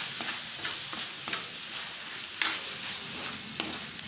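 Pork and shrimp paste sizzling in a metal wok as it is stirred. A spatula scrapes and knocks against the pan every second or so over the steady frying hiss: the sautéing stage before the vegetables go in.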